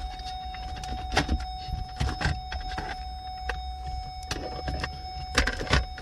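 Scattered sharp clicks and knocks of plastic trim being handled and pried loose: the center-console panel holding the AUX and USB ports of a 2017 Hyundai Elantra SE is pulled free of its clips. A thin steady tone runs underneath.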